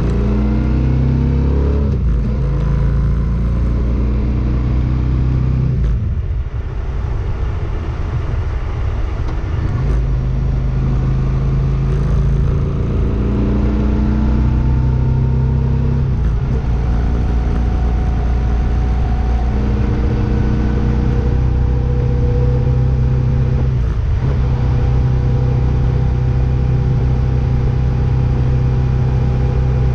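Motor vehicle engine running, its pitch rising and falling in places and holding steadier near the end.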